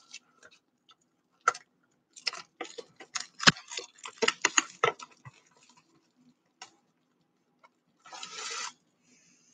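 Plastic shrink wrap on a cardboard trading-card box being picked at and peeled off. A run of sharp crackles and clicks comes first, then a short tearing rustle about eight seconds in.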